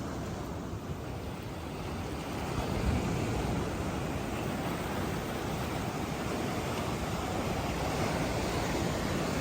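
Sea waves washing up on a beach: a steady rush of surf that swells a little about two to three seconds in.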